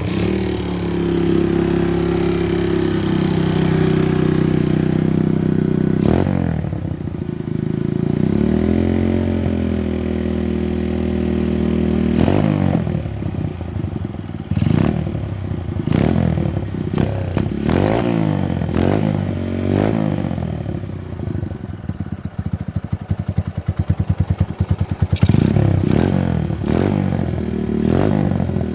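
Honda Sonic motorcycle with a stock, unmodified engine running through an Over Racing Project aftermarket exhaust: idling, then revved up and down with a string of quick throttle blips in the second half.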